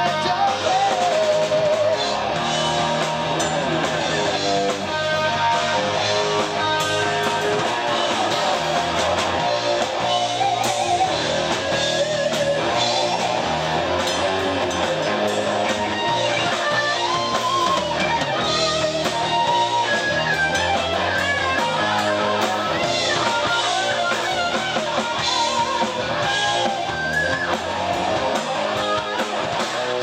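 Rock band playing live: distorted electric guitars, bass guitar and a drum kit, playing continuously.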